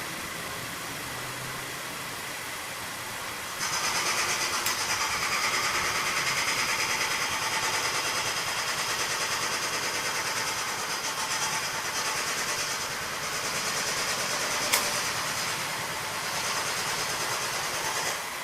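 2016 Subaru Levorg's turbocharged flat-four idling with its air conditioning on. A few seconds in, a louder steady whirring hiss comes on suddenly and holds until near the end, with a sharp click about a second after it starts and another later on. The A/C compressor runs without any abnormal noise, though it cycles on too seldom and cools poorly.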